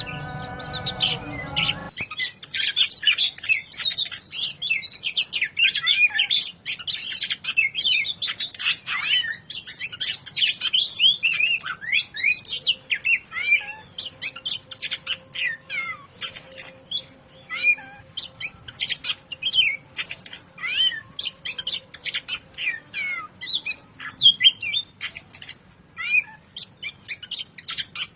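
Oriental magpie-robin (kacer) singing vigorously, starting about two seconds in. It delivers a fast stream of chirps, slurred notes and sharp whistles in short broken phrases with brief gaps, the choppy 'patah' delivery kacer keepers prize.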